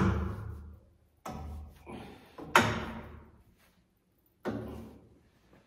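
About five hollow knocks and thumps, each ringing on briefly in the empty framed room, as stiff PEX tubing is flexed and bumped against the wooden wall studs. The loudest come right at the start and about two and a half seconds in.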